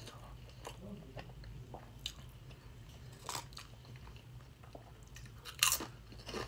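Close-up mouth sounds of chewing a mouthful of burrito, with soft wet clicks and smacks. About five and a half seconds in comes a louder, crisp crunch as a Sun Chips chip is bitten.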